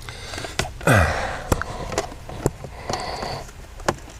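Scattered sharp plastic clicks and knocks of a car's dashboard HVAC control module being pulled out and handled, with a short breathy sound about a second in.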